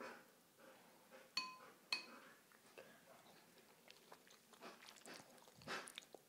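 Alaskan Malamute licking a Maine Coon cat's head: faint, wet smacking and lapping, with two short ringing clicks about a second and a half and two seconds in.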